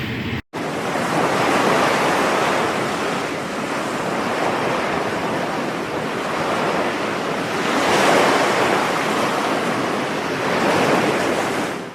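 Ocean surf washing in, a steady rush that swells and fades, loudest about two, eight and eleven seconds in.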